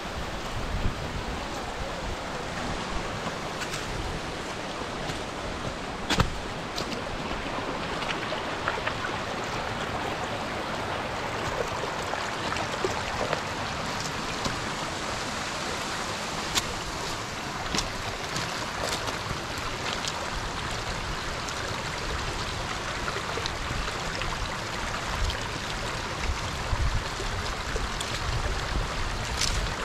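Shallow stream running over stones, a steady rush of water, with a few sharp clicks and knocks, the loudest about six seconds in.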